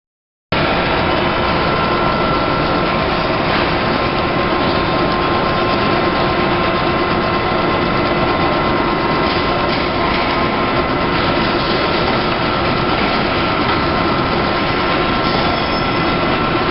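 Big-bag (FIBC) fabric edge pre-folding and stitching machine running steadily as the fabric feeds through: a loud, even mechanical noise with a few constant whining tones, setting in abruptly about half a second in.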